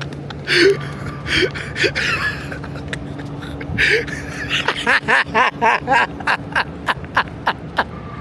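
People laughing in short bursts, with a quick run of laughs about five seconds in.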